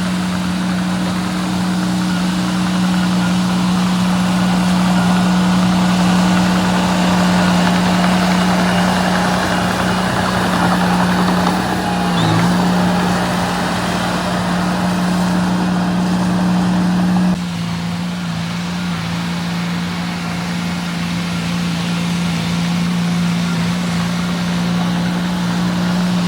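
Diesel engine of small earthmoving machinery running steadily with a constant drone. About two-thirds of the way through, the sound drops suddenly to a lower level and carries on.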